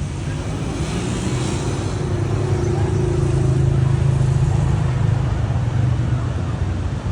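A motor vehicle's engine running with a steady low hum that grows louder to a peak about four seconds in, then eases off slightly, as if passing close by.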